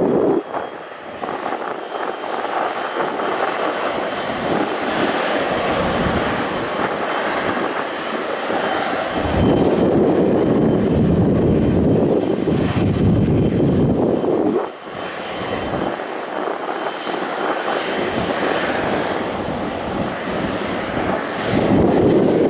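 Passenger aircraft engines running with a steady rushing noise and a faint high whine. The noise grows heavier about ten seconds in and dips briefly near fifteen seconds.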